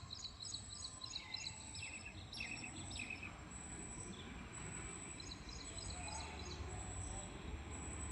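Small birds chirping in quick runs of short repeated calls, with a faint pulsing high insect whine and a low outdoor rumble behind them.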